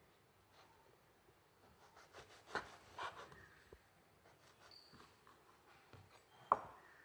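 A kitchen knife cutting through slices of white bread on a wooden cutting board: a few soft, scratchy crunches of the crust, and one sharp tap near the end.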